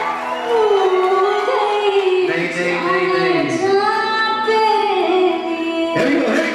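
Bollywood film song played for a dance: a woman's voice sings long, gliding, ornamented melodic lines over light accompaniment, with a sharp percussion hit near the end.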